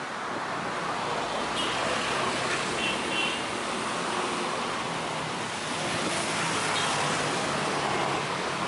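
Steady road traffic noise from passing vehicles, with a few brief faint high-pitched tones about two to three seconds in.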